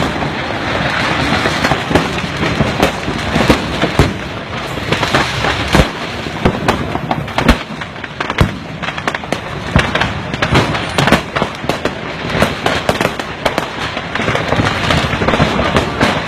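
Fireworks stock going off uncontrolled in a fireworks factory blast and fire: a continuous, irregular barrage of loud cracks and pops over a steady crackling din.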